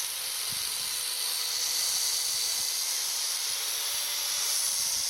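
Electric chainsaw running with a steady high hiss.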